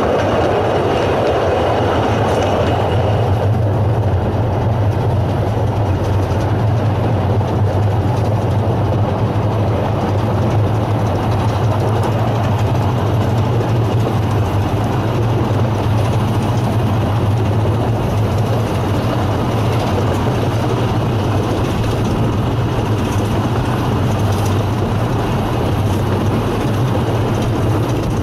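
A 12¼-inch gauge steam train running, heard from its open wagons: a steady, loud rumble of the wheels and carriages on the track.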